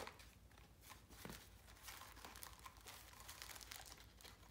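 Faint rustling and crinkling of cardboard packaging as a box of model rocket engines is opened and the engines are handled and pulled out, with scattered small clicks.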